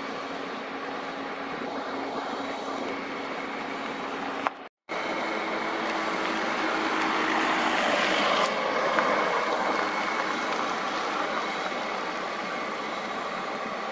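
Steady outdoor background noise: a hiss with a faint constant machine hum. It cuts out briefly about four and a half seconds in, then swells for a few seconds around the middle before settling again.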